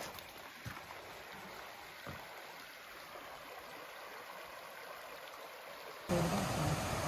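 Small stream running steadily, with a couple of soft thumps. About six seconds in it cuts abruptly to a much louder, steady rushing noise.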